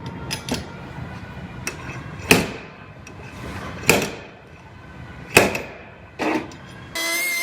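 Slide hammer pulling on a tab welded to a dented steel quarter panel: sharp metallic knocks with a short ring, about one every second and a half, with a few lighter clicks before them. A steady high whine cuts in abruptly near the end.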